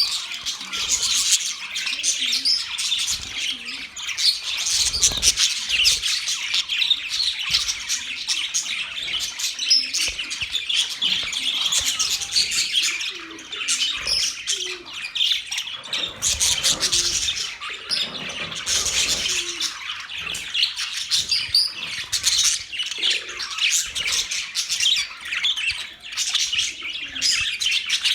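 A group of budgerigars chattering continuously, a dense run of overlapping high chirps and squeaks.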